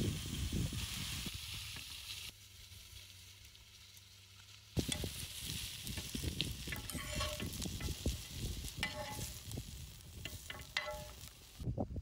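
Meat, peppers and other vegetables sizzling on a flat steel griddle over a wood fire. From about five seconds in, a metal spatula scrapes and clicks against the griddle as the food is stirred.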